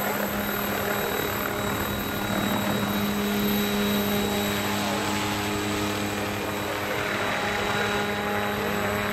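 Unmanned crop-spraying helicopter, with a single main rotor and a tail rotor, flying over the field: a steady hum from the rotor and motor with one strong low pitch and higher overtones.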